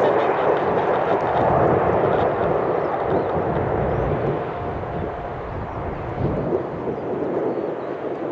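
Jet engines of a Boeing 777-300 taxiing at low power: a steady, loud rushing hum that eases off slightly partway through.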